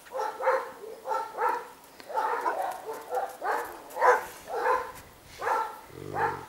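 Dog giving about a dozen short, pitched barks and yelps in quick succession, an excited greeting between the mother dog and her puppies.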